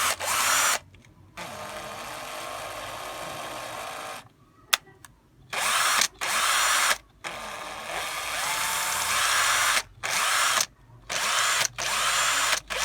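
Hitachi cordless screwdriver motor running on a freshly rebuilt lithium battery pack, trigger squeezed on and off in about eight short runs: a longer, softer run near the start, then louder bursts. One sharp click a little under five seconds in. The tool runs strongly, showing the new cells deliver full power.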